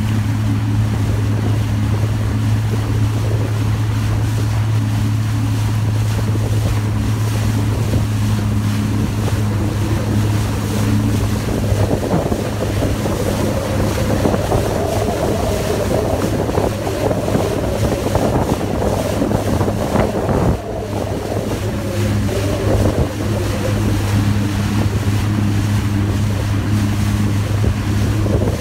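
Sea-Doo personal watercraft running at a steady cruising speed, its engine holding one even low note under the rush of wind on the microphone and water along the hull. For a stretch in the middle the engine note weakens beneath louder wind and spray.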